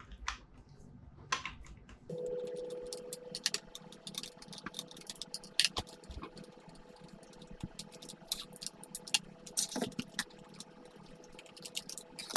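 Phillips screwdriver backing out small screws from a Dyson V10 vacuum's plastic housing: scattered clicks and ticks of the driver and plastic parts. A steady hum comes in suddenly about two seconds in and runs underneath.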